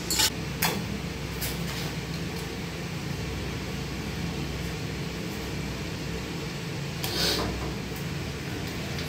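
Steady low mechanical hum, like ventilation, with a few sharp clicks in the first two seconds and a brief scraping rasp about seven seconds in, as a hand cable-stripping tool works on the end of a single-core power cable.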